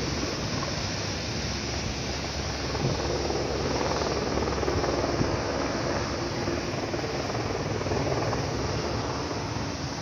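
Steady rushing roar of a mountain waterfall and white-water stream pouring over rocks in a gorge.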